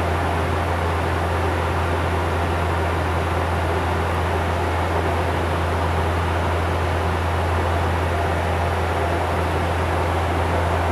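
Steady drone of a Bombardier Q400's PW150A turboprops and six-bladed propellers in cruise, heard inside the cockpit: a deep, even hum with a constant hiss over it.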